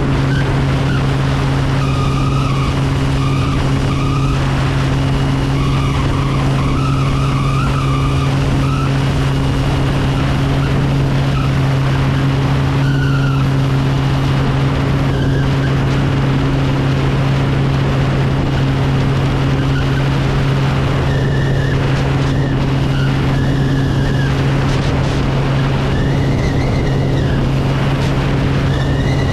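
Kodiak single-engine turboprop with a Pratt & Whitney PT6A engine, in cruise flight. Its propeller gives a steady, unbroken low drone under a rush of wind, heard from a camera mounted outside on the wing. Faint wavering whistles come and go above the drone.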